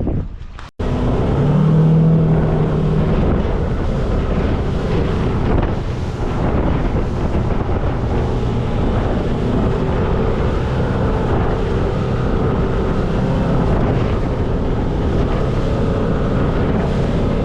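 Boat engine running steadily underway, with wind buffeting the microphone.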